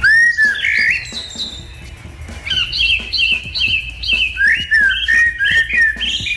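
A pet bird calling: loud whistled glides at the start, then a quick run of repeated short chirps.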